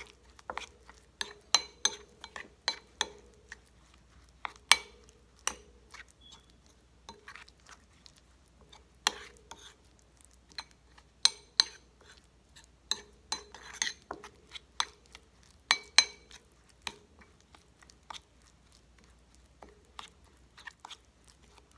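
A metal utensil stirring a thick, wet mix of melted butter, minced garlic, parsley and Parmesan in a bowl: irregular sharp clinks and scrapes against the bowl, some briefly ringing, sparser toward the end.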